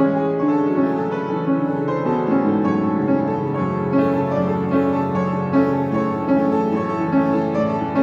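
Background music: a piano piece of steady, overlapping notes.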